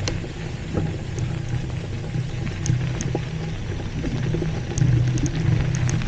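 Polygon Xtrada 7 mountain bike riding along a dirt trail: a steady low rumble of tyres and wind noise on the camera's microphone, with a few light clicks and rattles.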